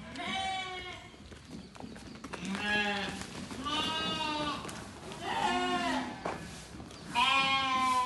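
Sheep in a flock bleating: about five separate wavering calls, each a second or less long and at slightly different pitches, from several animals.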